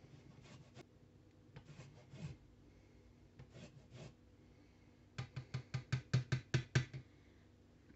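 A lime being zested on a stainless rasp grater resting on a wooden cutting board: scattered rasping strokes, then a quick run of about a dozen strokes, about six a second and the loudest, a little past the middle.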